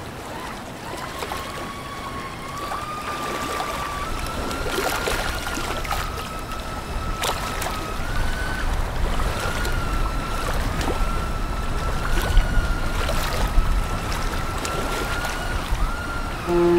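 A large container ship passing slowly: water rushing at the bow wave over a low rumble, with a steady high whine that wavers slightly in pitch and scattered light splashes or knocks.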